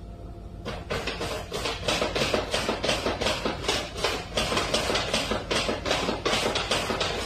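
A cat pawing again and again at a plastic shopping bag, a rapid run of crinkling rustles at about four a second, starting about a second in.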